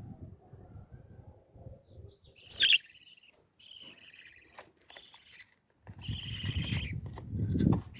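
Baby parrots calling: a sharp squawk about a third of the way in, then scratchy high chirps in short runs. Low rustling noise sits under the calls near the start and again near the end.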